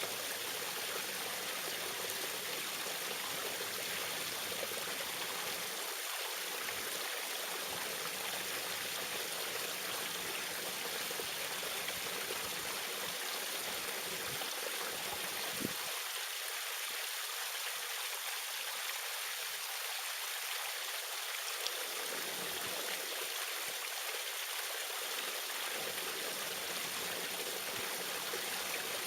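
Small waterfall, water falling and splashing in a steady, even rush with a bright, hissy edge.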